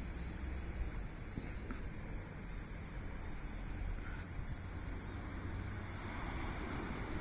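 A cicada singing in a high buzz. It is steady at first, then breaks into even pulses about three a second that grow shorter and fainter as the song winds down, over a low steady rumble.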